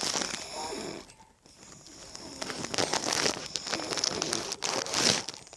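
A sleeping woman snoring: a noisy breath, a short pause a little after a second in, then a longer rough snoring breath lasting about three seconds.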